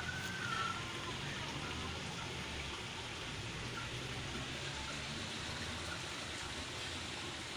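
Steady outdoor background hiss, with a brief high wavering whistle at the very start.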